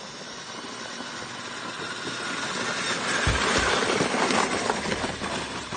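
Traxxas X-Maxx RC truck towing a plastic sled over packed snow: a scraping hiss of tyres and sled that grows steadily louder as they come close and pass, with two low thumps about three seconds in.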